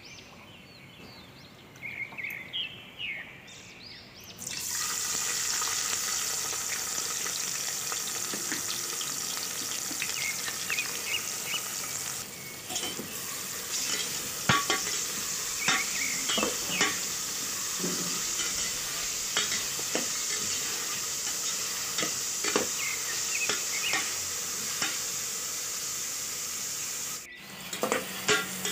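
Sliced onions frying in hot oil in an aluminium pressure cooker: a loud, steady sizzle starts suddenly about four seconds in as the onions go into the oil. A metal spatula scrapes and clicks against the pot as the onions are stirred.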